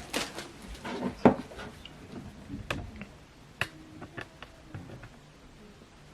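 Handling noise from a laptop charger and its cable being moved about: a string of light clicks and knocks, the loudest about a second in.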